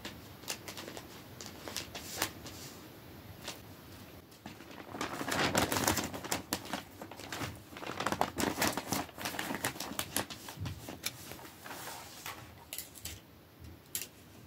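Rolls of gift-wrapping paper crinkling and rustling as they are handled and knocked about, with scattered light taps; the crinkling is thickest from about five to ten seconds in.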